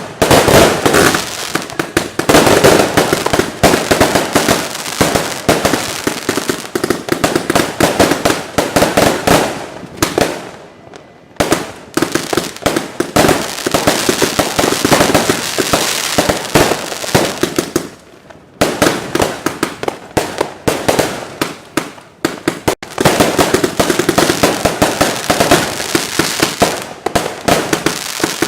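Fireworks and firecrackers going off in dense, rapid volleys of sharp bangs and crackling, many reports a second, with brief lulls about ten, eighteen and twenty-three seconds in.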